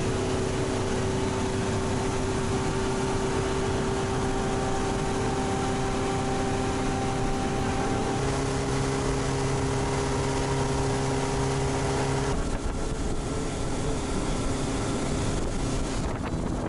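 Motorboat engine running steadily while the boat is under way, over a constant rush of water and wind. Its tone changes abruptly about twelve seconds in.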